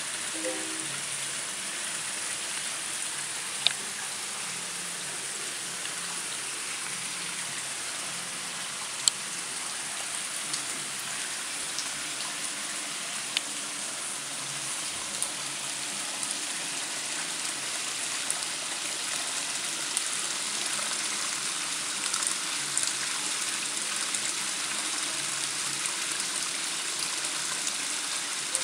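Water spilling from a small waterfall into a koi pond: a steady, even splashing, with a few sharp clicks.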